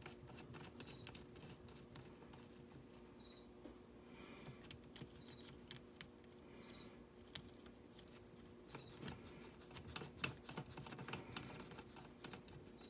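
Faint scattered clicks and light metal-on-metal scraping as small bolts are turned in by hand through the retainer plate over the front drive sprocket of a small ATV, with one sharper click a little past halfway.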